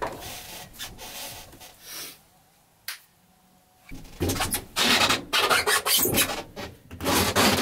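Hands rubbing and smoothing a shaggy fur rug over a foam mattress pad: a series of brushing, rasping strokes, soft at first, then louder and quicker from about halfway.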